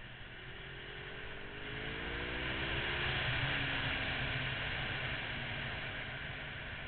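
Honda VFR800's V4 engine climbing in pitch as the motorcycle accelerates, under a rush of wind noise that swells and peaks about three seconds in, then eases slightly.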